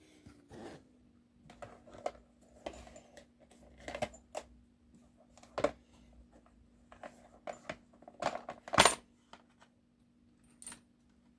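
Small metal clicks and clinks of a picked Winkhaus euro cylinder lock being gutted with hand tools, irregular and scattered, the sharpest clink about nine seconds in. A faint steady low hum underneath.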